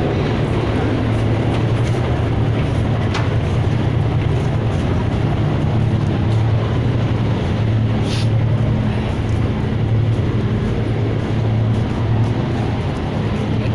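Boat's engine running steadily, a low, even drone, with a brief click about three seconds in and a short hiss about eight seconds in.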